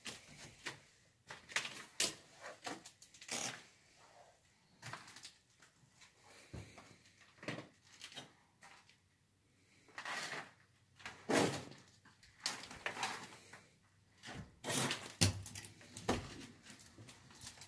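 Irregular knocks, scuffs and creaks from someone moving about and handling things in an empty room, louder clusters about two seconds in, around ten to twelve seconds, and near the end.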